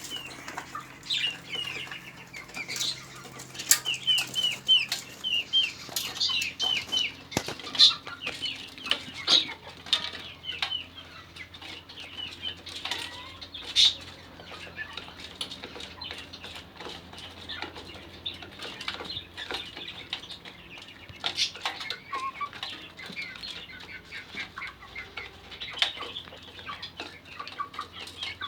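Birds chirping in quick runs of short, high notes, with scattered sharp taps and wing flutters.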